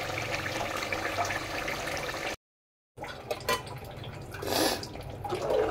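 Meat masala sizzling in an aluminium cooking pot, a dense crackling hiss. After a cut, water bubbling in the pot with scattered small clicks and a brief louder swell near the end.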